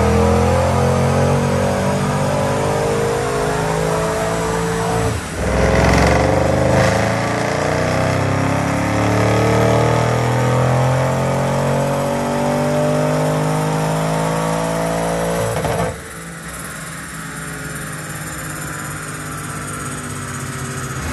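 Audi RS6 C8's twin-turbo 4.0 V8 through an Akrapovic titanium exhaust with sports cats, at full load on a chassis dyno, rising steadily in pitch during a dyno pull. There is a brief break in the sound about five seconds in, then a long climb until the throttle is lifted about sixteen seconds in, after which it drops to a quieter, lower run.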